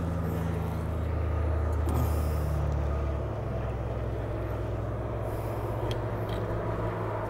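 An engine running steadily with a low hum. Its lowest note drops away about three seconds in, and a few light clicks come over the top.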